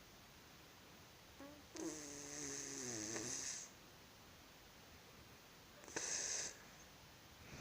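A sleeping woman snoring: one drawn-out snore, pitched and falling slightly as it goes, lasting about two seconds, then a short hissing breath about six seconds in.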